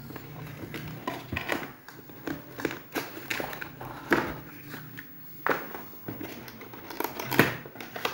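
Irregular rustling and crinkling of a laptop's protective wrapping sheet and cardboard box being handled, with a few sharper knocks of cardboard.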